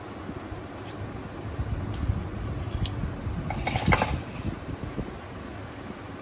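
Light metallic clinks and clicks from steel gears and shafts being handled and moved in an opened motorcycle engine crankcase, with a quick cluster of clinks about four seconds in.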